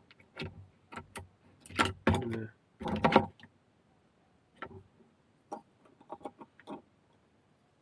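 Small metal leather-cutting dies and punches clinking and rattling together as they are picked through. It comes as a run of short clicks and clatters, busiest in the first three seconds, then a few lighter taps.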